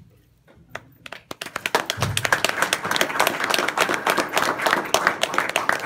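Audience applauding: a few scattered claps about a second in, quickly building into steady, dense applause, with some sharp, loud claps close by.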